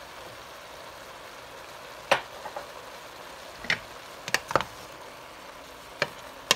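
Mixed vegetables sizzling in a stainless steel pot, with a utensil clinking against the pot about six times as they are stirred.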